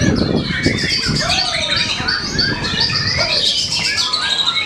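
White-rumped shama (murai batu) singing a rapid, varied run of whistled phrases with rising and falling notes, over the low rumble of strong wind buffeting the microphone, heaviest in the first second.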